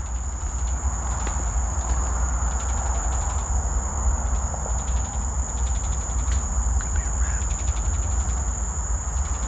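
A steady, high-pitched insect-like trill held at one pitch, over a constant low drone and a faint crackling hiss. It is the unexplained noise heard coming from all directions in the mangroves at night.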